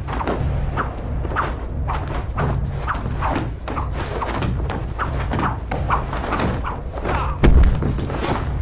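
Rapid hand-to-hand fight sound effects: punch and kick impacts and swishes in quick succession over a steady low rumble. One heavy thud about seven and a half seconds in.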